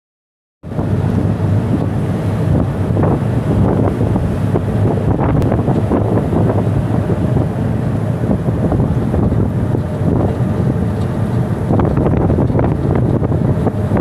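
Strong wind buffeting the microphone on the open deck of a small ship in rough, choppy sea, with waves rushing along the hull and a low steady hum beneath. It starts about half a second in.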